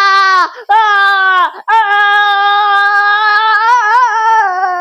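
A high voice singing one long held note at nearly the same pitch. It breaks twice in the first two seconds and wavers near the end.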